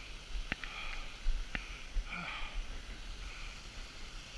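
Thin trickle of a low-flow canyon waterfall, with a few sharp clicks about a second apart and low wind rumble on the microphone.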